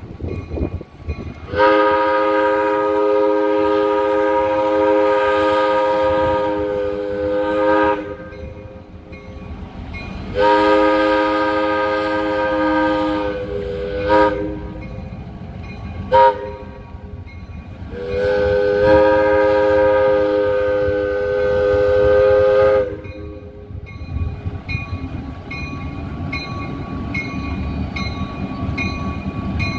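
Diesel locomotive's multi-note air horn blowing the grade-crossing signal: two long blasts, a short one, then a long one. A bell dings repeatedly underneath. After the last blast the diesel engine's low rumble grows as the locomotive pulls toward the crossing.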